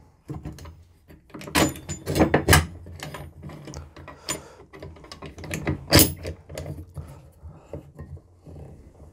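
Knocks, clunks and rattles of heavy steel square tubing being handled and set on the miter saw's table before the cut. There is a cluster of knocks a couple of seconds in and the loudest knock about six seconds in; the saw is not cutting.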